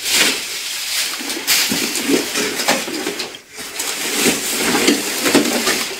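Bubble wrap and plastic packaging rustling and crinkling as it is handled and pulled from a cardboard box, with a brief lull about halfway through.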